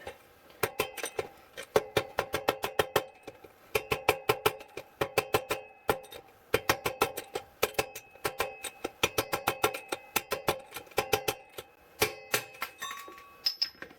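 A hammer tapping a metal rod in quick runs of blows to drive a BMX bottom bracket bearing out of its shell, each strike ringing metallically, with short pauses between runs.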